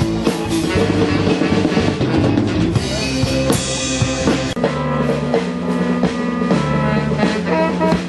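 Live band music recorded from the audience: a drum kit playing a steady beat under bass and guitar. About halfway through, the drumming gives way to longer held bass notes.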